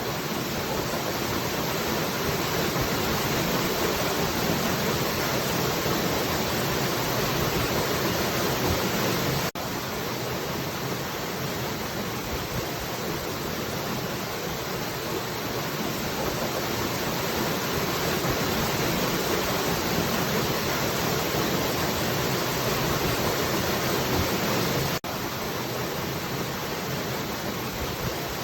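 Steady, dense rush of falling water, with two very brief dropouts, one about ten seconds in and one near the end.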